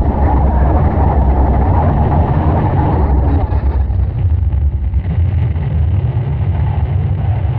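Harsh noise drone music: a loud, steady low rumble with a grainy, distorted haze layered above it.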